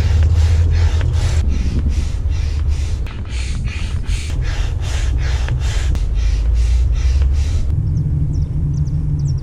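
Hand pump inflating an orange Hydro-Force inflatable kayak: rhythmic whooshes of air at about two strokes a second over a low rumble. The pumping stops about eight seconds in.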